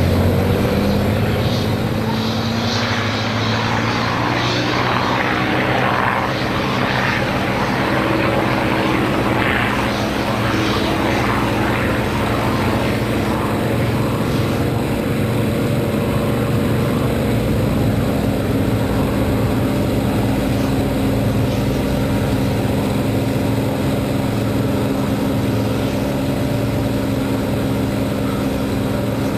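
Hawker Hurricane's Rolls-Royce Merlin V12 running at takeoff power, heard from inside the cockpit as a loud, steady drone through the takeoff roll and climb-out. A rough rattle of the wheels on the runway over the first ten seconds or so smooths out as the aircraft lifts off.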